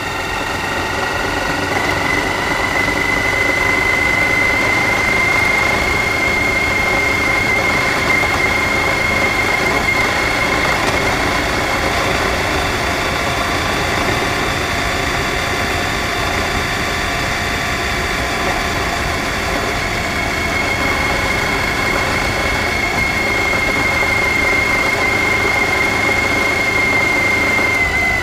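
Suzuki V-Strom DL1000's V-twin engine running at a steady cruising speed, with wind and road noise and a steady high whine over it.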